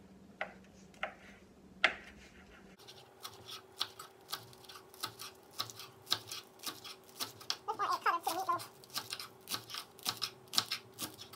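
Chef's knife slicing green onions against a wooden cutting board: a few separate knocks, then, about three seconds in, quick steady chopping at roughly three strokes a second.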